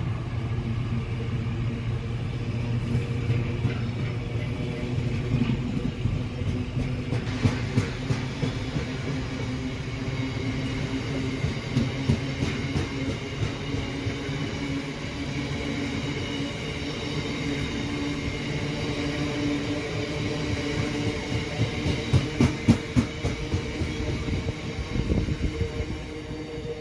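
A train running past on the line: a steady mechanical hum, with wheels clicking over rail joints now and then, easing off near the end.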